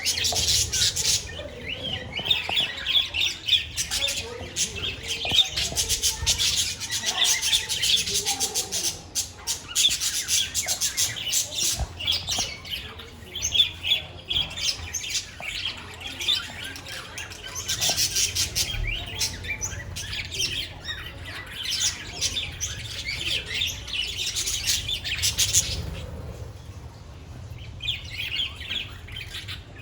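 A flock of budgerigars chirping, warbling and squawking together in a busy, overlapping chatter, easing off briefly near the end.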